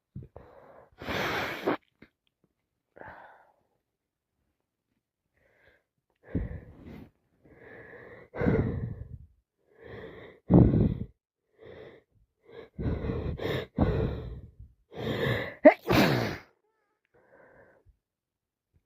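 A woman with a cold sneezing over and over, with gasping, wheezy breaths between sneezes. The sharpest sneezes come about halfway through and near the end.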